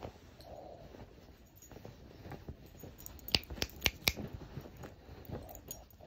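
Small dog burrowing and nosing into a duvet on a bed, with soft rustling of the bedding and a quick run of about four sharp clicks a little past halfway.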